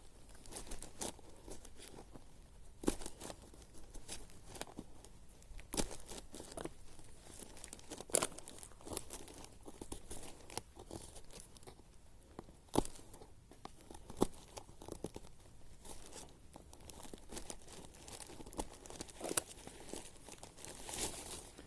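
Dry tinder and small sticks being handled: crinkling rustle with irregular sharp cracks and snaps, a dozen or so spread unevenly.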